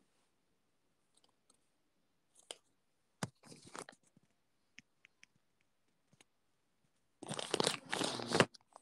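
Handling noise from a phone being moved through a bouquet: scattered small clicks and a sharp knock a little over three seconds in, then a loud rustling and crunching of leaves and stems brushing against it near the end.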